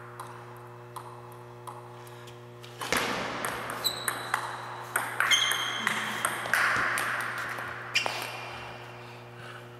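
Table tennis rally: the celluloid-type ball clicking sharply off the paddles and the table several times a second for about five seconds, ending with a loud hit. A few light ticks of the ball come first, and short high squeaks sound during the rally.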